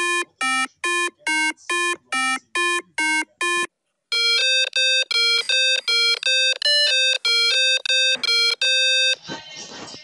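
A ringtone-like electronic melody of short beeping notes: about ten notes hopping between two low pitches, then after a brief pause a longer, quicker run mostly on one higher pitch.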